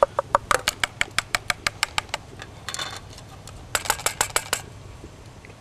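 A quick, even run of light clicks or taps, about seven a second, then a brief rustle and a second, shorter run of clicks.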